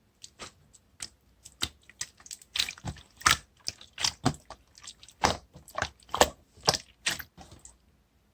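Slime being squished and pressed, giving a rapid, irregular string of wet clicks and pops that stops shortly before the end.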